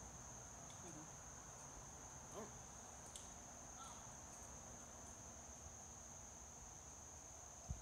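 Insects in the surrounding forest giving a steady, high-pitched drone, one unbroken tone. A short soft thump sounds near the end.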